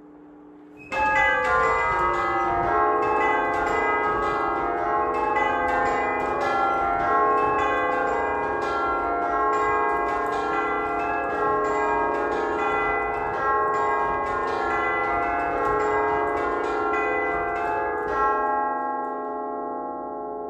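A ring of eight 1849 tubular church bells, struck by hammers pulled on ropes from a chiming frame, chiming a steady run of notes. The bells start about a second in and are struck over and over. The striking stops near the end and the notes are left ringing on as they fade.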